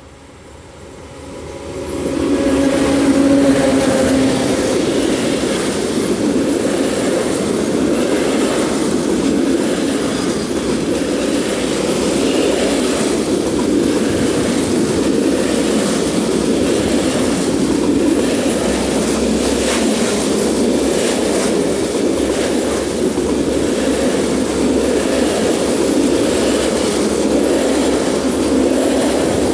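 Electric locomotive hauling a freight train passes close by, growing loud within the first two seconds with a brief hum. A long rake of covered flat wagons follows, rolling past steadily with the wheels rumbling and clattering on the rails.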